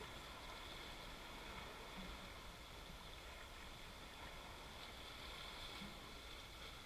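Faint, steady wash of a calm sea against shoreline rocks.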